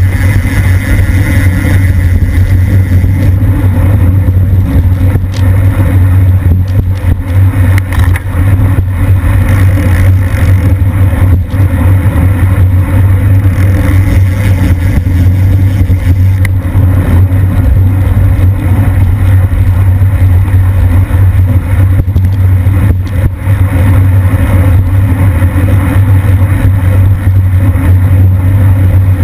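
Wind buffeting a racing cyclist's action camera microphone at about 26–28 mph: a loud, steady low rumble.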